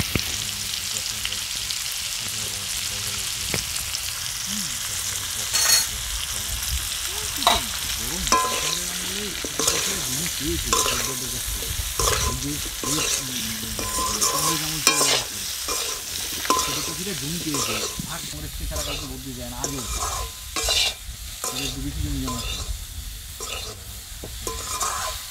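Cauliflower florets sizzling as they fry in oil in a metal karahi. A metal spatula stirs them, scraping and clinking against the pan again and again.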